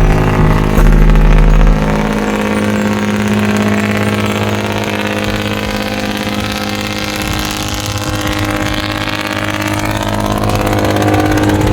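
Engine of a purse seine fishing boat running steadily; its low rumble drops about two seconds in and the sound grows louder again near the end.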